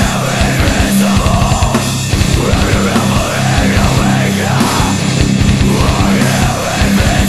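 Loud heavy rock music with a dense, fast drum beat.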